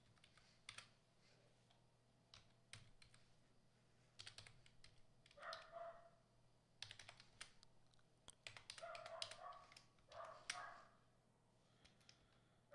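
Faint typing on a computer keyboard: irregular clusters of sharp key clicks as numbers are keyed into a spreadsheet-like table, with a few brief faint pitched sounds between the clusters.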